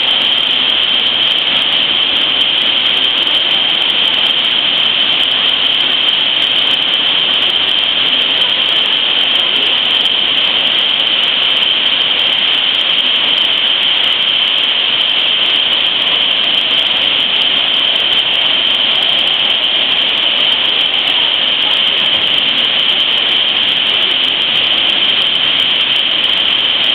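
Waterfall pouring into a pool: a loud, steady rushing that does not change.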